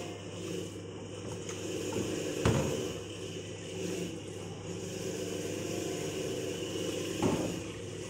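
A steady low hum, with two short knocks: one about two and a half seconds in and one near the end.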